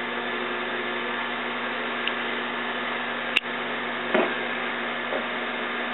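16mm film projector running steadily in forward with its lamp on: the motor, cooling fan and film transport make an even mechanical whir. One sharp click comes about three and a half seconds in.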